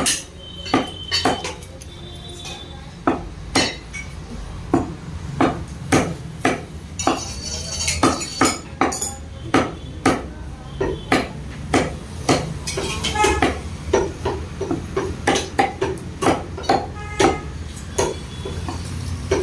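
Meat cleaver chopping a country hen into pieces on a wooden log chopping block: a string of sharp, irregular chops, about one or two a second.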